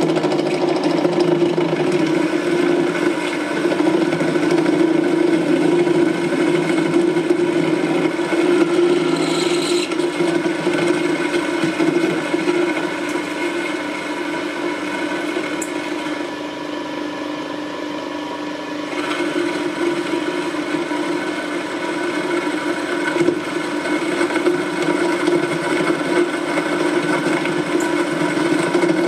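Metal lathe boring out a workpiece clamped on its faceplate: the machine runs with a steady hum while the cutting tool scrapes against the metal. About two-thirds of the way in the scraping quietens for a few seconds, then picks up again.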